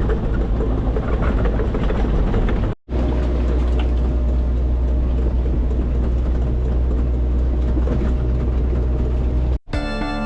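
Excavator's diesel engine running steadily under load, heard in two separate clips with an abrupt cut about three seconds in.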